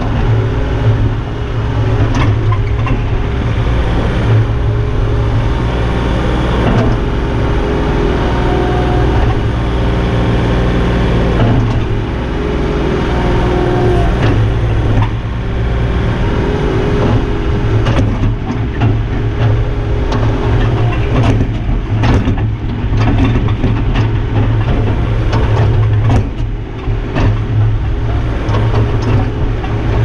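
Takeuchi TB035 mini excavator working, heard from the operator's seat: a steady diesel engine drone under hydraulic tones that shift as the boom and bucket move. A run of sharp knocks and clanks comes in the second half.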